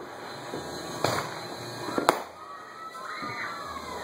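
Fireworks going off around the neighbourhood: a bang about a second in and a sharp crack about two seconds in, the loudest, followed by a short wavering whistle.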